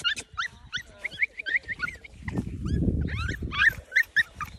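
F1B mini goldendoodle puppies yipping and whimpering in short, high calls, several a second. A low rustling noise rises about halfway through.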